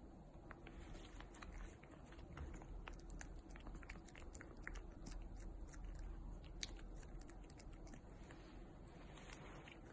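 British Shorthair cat licking and mouthing a squeeze-tube cat treat: faint, irregular wet clicks of its tongue and mouth.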